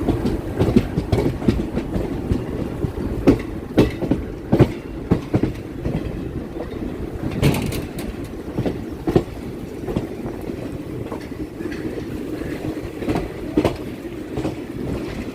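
Chennai MRTS electric suburban train running on the line: a steady rumble with irregular knocks and clatter of the wheels over the track, most frequent in the first half.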